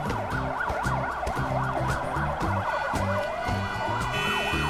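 Ambulance siren in fast rising-and-falling yelps, changing about three seconds in to a slower rising wail, over background music with a steady beat.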